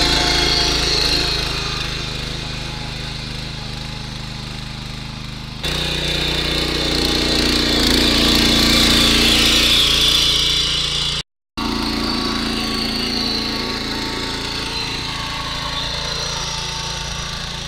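Mini power tiller's small air-cooled petrol engine running steadily as its tines till the soil. The sound jumps at a cut about six seconds in and drops out for a moment about eleven seconds in.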